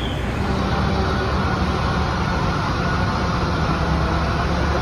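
Fire engine's diesel engine running steadily with a low rumble, amid city street traffic noise.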